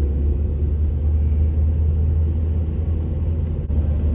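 Steady low rumble of a car driving on a winter road, heard from inside the cabin, with a brief dip in level near the end.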